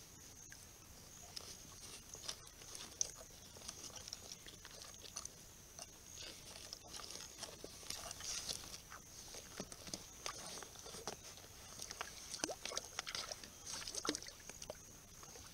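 Water splashing and sloshing in a plastic trough as an echidna moves in it and a lace monitor lunges in and grabs at it. The splashes are irregular, growing more frequent in the second half, over a steady high-pitched whine.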